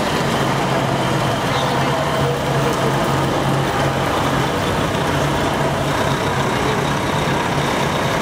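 Heavy truck diesel engines running at low speed as tractor units drive slowly past, a steady low drone.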